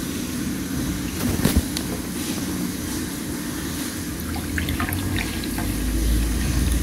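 Pour-over coffee poured from a glass flask carafe into a small ceramic cup, a steady trickle of liquid, with a light knock about a second and a half in.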